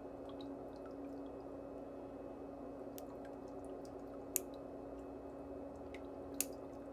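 Two sharp snips, about two seconds apart, from steel toenail nippers clipping the edge of a thick big toenail, over a steady low hum.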